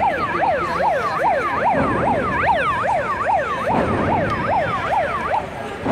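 A siren-like yelping tone, fast rising-and-falling sweeps repeated about two and a half times a second, cutting off shortly before the end, over a steady arena crowd noise.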